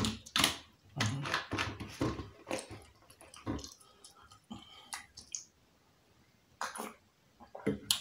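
Close-miked chewing of a mouthful of jollof rice: wet mouth clicks and smacking in uneven bursts, with a pause of about a second past the middle.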